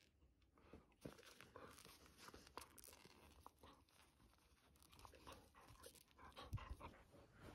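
Faint crackling and rustling as a dog sniffs and mouths a ball of yarn held up to its nose, with a soft thump about six and a half seconds in.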